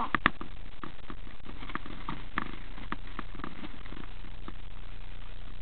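Two sharp clicks right at the start, then a string of light, irregular knocks and taps, about two or three a second, over a low steady rumble.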